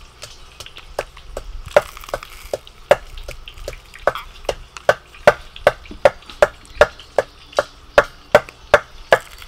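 A run of sharp knocks, uneven at first, then settling into a steady beat of about two to three a second from about four seconds in.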